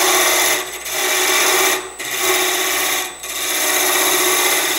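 Negative rake box scraper cutting into the end grain of a box blank spinning on a wood lathe, in four passes with short breaks between them. The tool is cutting cleanly rather than scraping, throwing shavings as it opens the recess for the lid.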